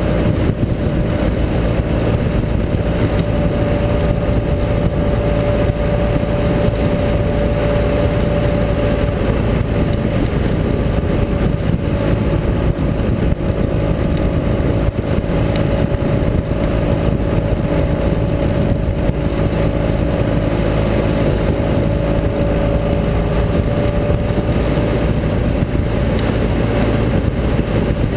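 Ural Gear Up sidecar motorcycle's air-cooled boxer-twin engine running steadily at road speed, mixed with wind rush on the microphone and road noise.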